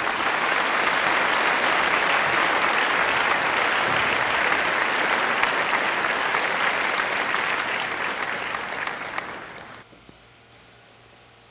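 Audience applause: many hands clapping steadily, tapering off about ten seconds in and leaving only a faint hiss.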